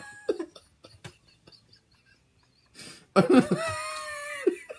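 Two people laughing. It is quiet at first, then about three seconds in comes a loud burst of short, sharp laughs running into one long drawn-out note that drops at the end.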